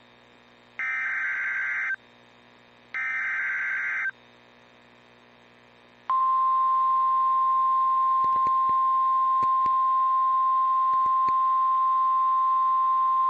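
Two short bursts of Emergency Alert System SAME header data, a harsh digital screech about a second each, then a short gap. About six seconds in, a steady single-pitch 1050 Hz weather alert tone starts and holds, signalling an incoming severe thunderstorm warning.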